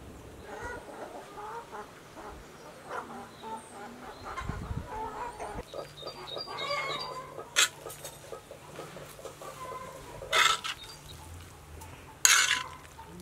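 Chickens clucking for the first half, then a metal spoon scraping stuffing off an iron saj griddle, with three short, sharp scrapes in the second half.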